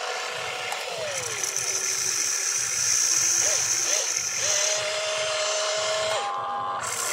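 Electric motors and gearboxes of an RC excavator whining as it slews and moves its boom and bucket, the tones stepping and gliding in pitch as each motor starts and stops. A high steady whine runs from about a second in until almost five seconds.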